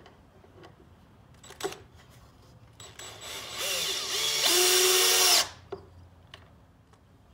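Power drill driving a self-tapping screw into the plywood bottom of a birdhouse through a pre-drilled hole: the motor winds up about three seconds in, runs with a steady whine for about two seconds and stops suddenly.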